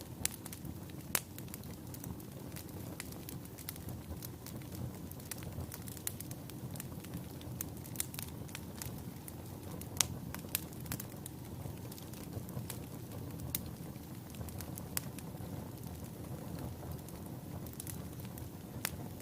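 Wood fire burning in a fireplace: a steady low rumble of flames with irregular sharp crackles and pops of burning logs, the loudest pops about a second in and about ten seconds in.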